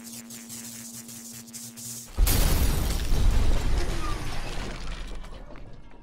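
A steady electric buzzing hum. About two seconds in, a loud crash of a television set being smashed, with breaking glass, fading out over the next few seconds.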